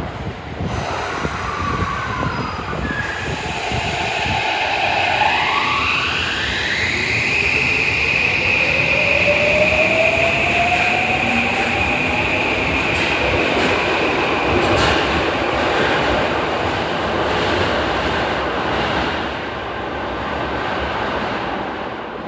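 Subway train pulling away from the platform: its electric traction motors whine, rising in pitch and then holding steady, over the rumble of the wheels on the rails. The sound fades near the end as the train leaves.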